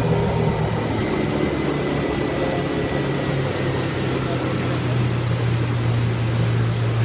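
Mercury 115 four-stroke outboard running steadily, heard from aboard the boat: an even low hum over a steady hiss, its pitch edging up a little about halfway through.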